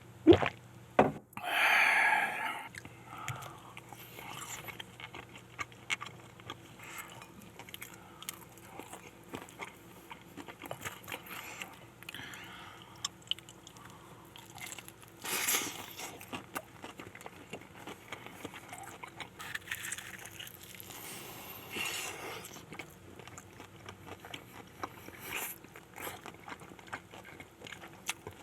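Close-up eating sounds of fried chicken: crunchy bites through the crispy coating and chewing, with a few louder crunches scattered through.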